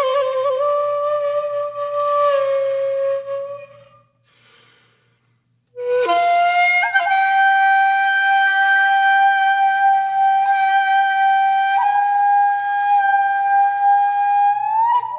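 Solo flute music: a held note with vibrato fades out about four seconds in, then after a brief silence a long sustained note begins and slides up in pitch just before the end.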